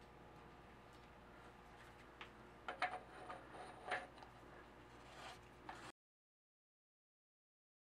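Metal hand tools clinking against a steel frame bolt as a wrench and socket are handled: a cluster of sharp clinks with brief ringing, loudest about three and four seconds in. About six seconds in the sound cuts off completely.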